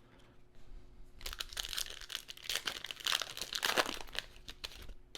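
A foil trading-card pack wrapper crinkling and tearing as it is opened by hand, starting about a second in and lasting about three seconds before tailing off.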